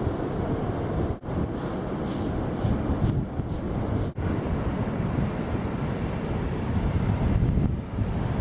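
Wind rumbling against the microphone over steady ocean surf, breaking off for an instant twice.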